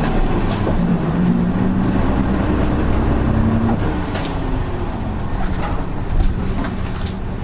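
Interior sound of a Nissan Diesel Space Runner RA (PKG-RA274MAN) city bus with its diesel engine running, a steady low engine note that fades about halfway through as the bus eases off. The engine sound is unlike other RA buses of the type, which is why it is known as an odd-sounding bus.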